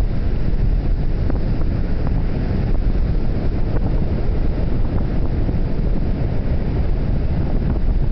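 Wind buffeting the microphone in a steady low rumble, over the wash of ocean surf breaking on the beach.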